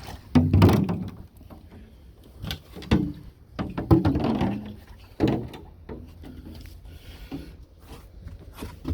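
Irregular knocks and clunks of car parts and tools being handled, a handful of separate hits spread out with short gaps between them.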